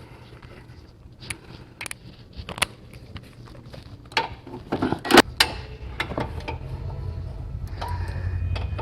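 Scattered metallic clicks and clinks of a hand wrench and socket being worked on a bolt, with a few sharper knocks around the middle. A low hum grows louder through the second half.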